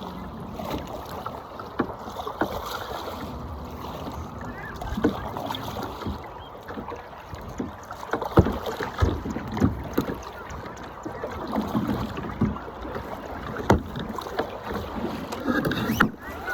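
Kayak paddling: the paddle swishing and splashing through the water, with occasional sharp knocks.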